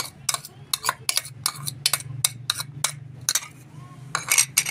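A spoon clinking and tapping repeatedly against a dish, irregular sharp clicks a few per second with a quick cluster near the end, as ginger-garlic paste is spooned onto marinating chicken. A low steady hum runs underneath.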